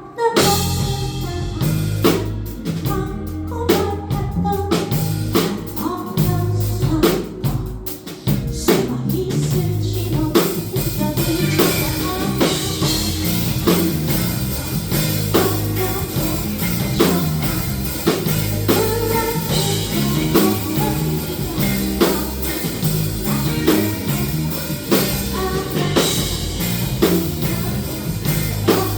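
A band playing a song with drum kit, bass and guitar, and a singing voice. The first several seconds are sparser, with separate drum hits, and the full band fills in about eight seconds in.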